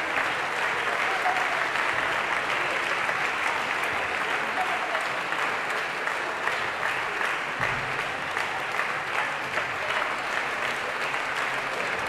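Concert audience applauding: dense, steady clapping throughout.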